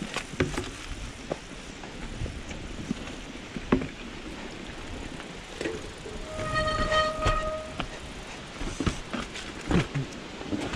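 Mountain bike riding over a wet trail and wooden plank bridge: tyre noise with scattered knocks and rattles from the bike. The sharpest knock comes about four seconds in, and a few more come near the end. Just past the middle, a steady squealing tone lasts about a second and a half.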